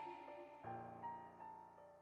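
Soft background piano music, quiet, with slow sustained notes, a new low chord about halfway through, fading away.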